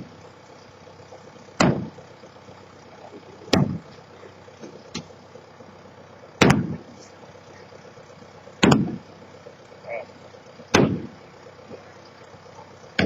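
Heavy impacts during the demolition of a farm silo, six of them about two seconds apart, each a sharp hit that dies away quickly, over a low steady machine-like background.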